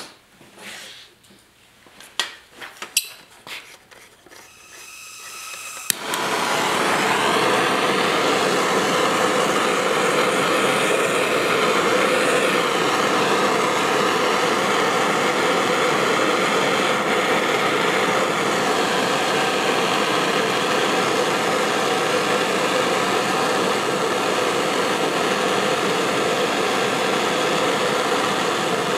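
Handheld gas torch burning with a steady, loud hiss as it heats a steel fuel tank for lead-free soldering. A few light clicks come first, and the flame starts abruptly with a sharp click about six seconds in.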